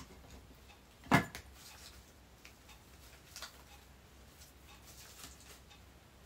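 Quiet handling of small craft decorations on an Easter basket: faint clicks and ticks, with one sharp knock about a second in and a smaller click cluster a couple of seconds later.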